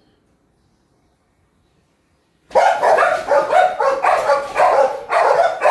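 Dogs in kennels barking loudly and rapidly, about three barks a second, starting suddenly about two and a half seconds in. This is excited barking at the prospect of being taken out.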